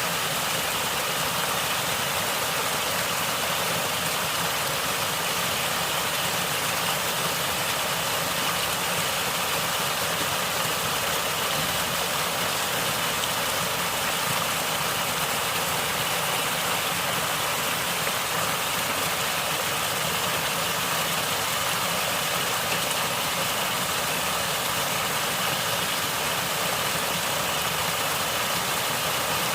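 Natural running water gurgling and flowing steadily, an even rushing without pauses.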